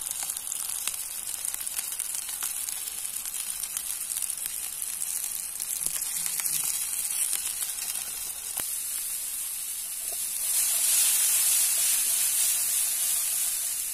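Diced vegetables sizzling in hot oil in a nonstick frying pan, with a steady hiss and scattered small pops. The sizzling gets louder for a few seconds near the end as chopped onions go into the pan.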